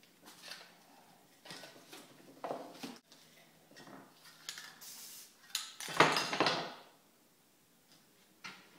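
A spray-paint artist's handling noises: sheets of paper rustling and tools and cans clattering, in irregular short bursts, the loudest about six seconds in.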